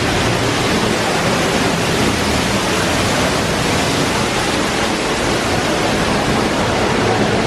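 Steady, even rushing noise with no distinct events, like falling water.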